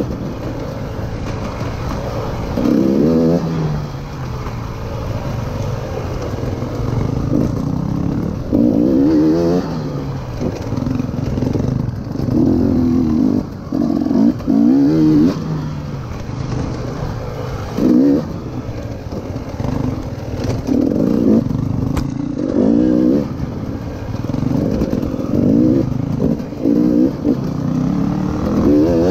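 KTM EXC 300 TPI two-stroke single-cylinder enduro engine under way off-road, its revs rising and dropping back again and again every second or two. One sharp knock comes about three-quarters of the way in.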